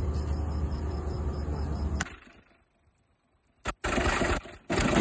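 Small pickup truck's engine idling with a steady low hum. About two seconds in, the sound cuts off abruptly, and a loud noisy rush follows after a quieter stretch.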